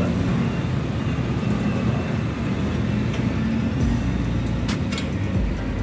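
An engine running steadily with a low rumble, with a few light clicks over it.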